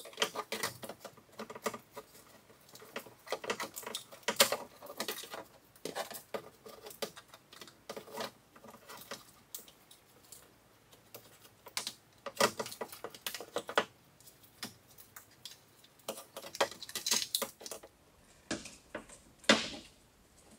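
Gloved hands handling and pressing a car door's black plastic evaporation barrier against the inner door panel: irregular crinkling, rustling and light clicking, with a few louder knocks.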